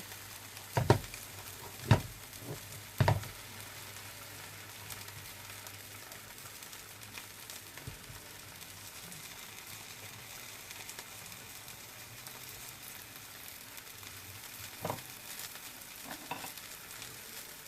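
Bánh xèo batter frying in a hot pan, sizzling steadily, with a few short knocks in the first three seconds and two more near the end.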